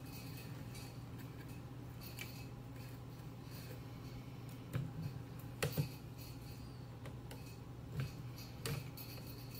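Small clicks and ticks of fingers handling wires and screw terminals on a telephone's network block, a few taps scattered through the middle and near the end, over a steady low hum.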